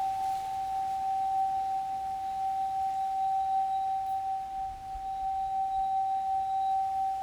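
Crystal harp ringing one steady, sustained pure tone, drawn out by a water-wet finger rubbing the crystal. A second, higher tone joins right at the end.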